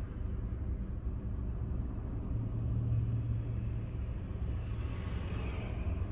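Steady low rumble of a car's engine and road noise heard from inside the cabin while crawling in slow city traffic, with a brief rise of tyre hiss from a car passing alongside near the end.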